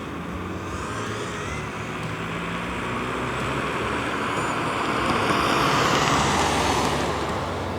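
DJI FPV drone's propellers whirring as it flies by, getting louder to a peak about six seconds in and then fading.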